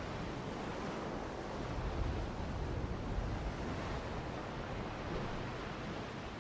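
Steady rushing nature-sound background, a soft even wash with slight swells in level.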